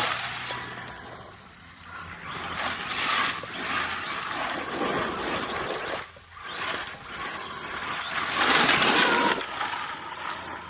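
Arma Mojave EXB RC truck driving over rough dirt and rock, its tyres and running gear making a noisy rush that swells and fades several times as it runs, loudest near the end.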